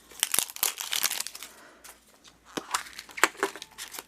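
Crinkling and tearing of a blind-bag toy wrapper being opened by hand: a run of sharp crackles, a short quieter pause midway, then more crackling.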